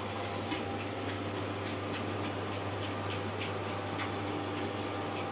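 Steady low hum with a faint hiss from an induction cooktop heating a covered stainless-steel steamer, broken by a few faint ticks.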